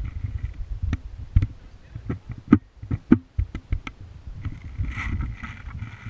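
Rumbling handling and movement noise on a body-mounted GoPro, broken by irregular sharp clicks and knocks.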